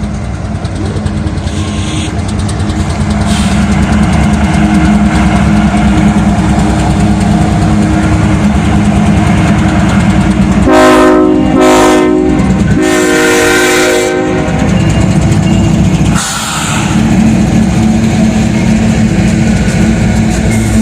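Freight train running close by with a steady heavy rumble. Its horn sounds three blasts about halfway through, the last one the longest.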